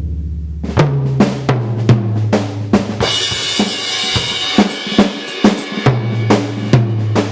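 Sampled Pearl Masterworks acoustic drum kit from BFD2 with a big-room reverb preset, played as a steady beat of bass drum and snare hits. A cymbal crash comes in about three seconds in.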